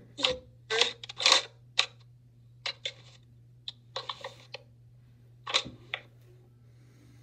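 Irregular clicks, taps and scrapes of makeup brushes and products being handled and dabbed onto the face, in several quick clusters that stop about six seconds in, over a faint steady low hum.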